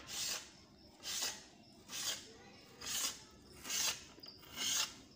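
Kitchen knife slicing through a tomato onto a plastic cutting board, one short scraping stroke about every second.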